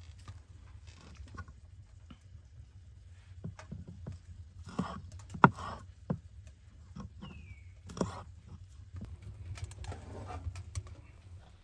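Kitchen knife chopping green onions on a wooden cutting board: irregular knocks of the blade hitting the board, the sharpest about halfway through.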